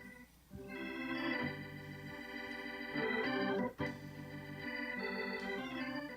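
Organ playing slow, sustained chords that change every second or two, with a brief break in the middle.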